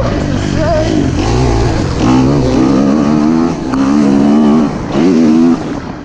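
Motocross bike engine at speed, revving up and falling back several times through the corners and straights, with wind buffeting the microphone.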